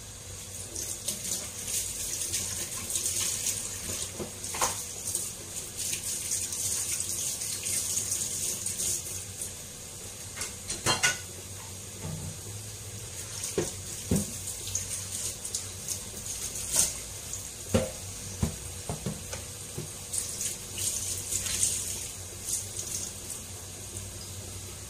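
Water running from a kitchen tap in two long stretches, with scattered clinks and knocks of dishes and utensils in between.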